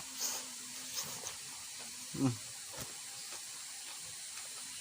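Soft eating sounds, a few faint mouth clicks and smacks, over a steady background hiss. There is a brief low murmur about two seconds in.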